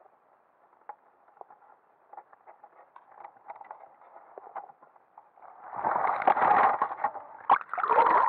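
Faint scattered clicks heard underwater through a camera housing, then from about five and a half seconds loud rushing and splashing water in two surges as the drop net is hauled up through the surface.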